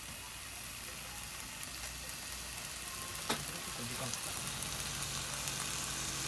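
Chicken thigh sizzling skin side down in a dry nonstick frying pan, frying in the fat rendering out of its skin. The hiss is steady and grows slightly louder, with one light click about three seconds in.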